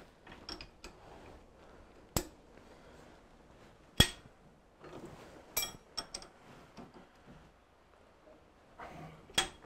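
A handful of sharp metal clinks and taps, a second or two apart, from hand tools on a six-jaw lathe chuck as its mounting screws to the backing plate are nipped up and the chuck is turned by hand.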